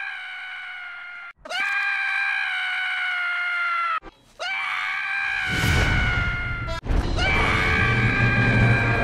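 Scrat, the animated saber-toothed squirrel of the Ice Age films, screaming: a run of long, high, held screams spliced one after another, each new one starting with a quick upward swoop and cut off abruptly. Under the last two screams runs a low rumble.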